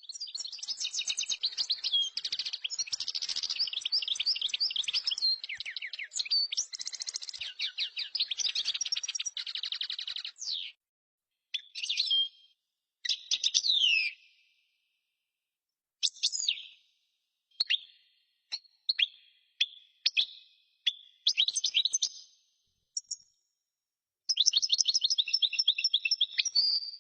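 Birds chirping and singing: a dense run of rapid, high chirps and trills for about ten seconds, then short separate phrases with silent gaps between them, and another rapid trill near the end.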